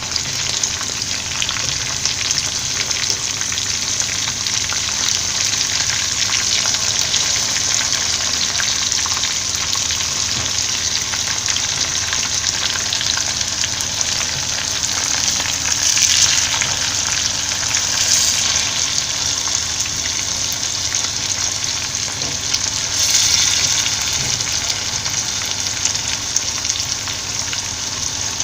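Marinated boneless chicken cubes frying in hot oil in a frying pan: a steady, dense sizzle and crackle, with a few louder swells of spitting partway through and near the end.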